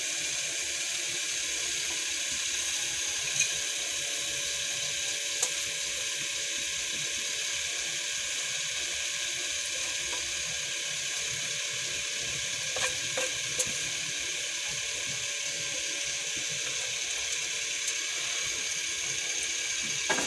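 Hot oil sizzling steadily in a frying pan after golden-brown garlic has been fried in it, with a few light clicks as a wooden spatula scoops the garlic against the pan.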